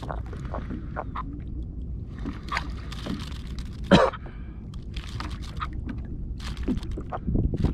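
Water lapping and slapping against a plastic kayak hull over a steady low wind rumble, with scattered light knocks and one sharp knock about four seconds in.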